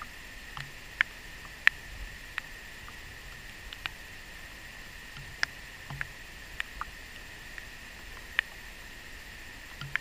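Steady rushing of a mountain stream, with about a dozen short sharp clicks scattered irregularly through it.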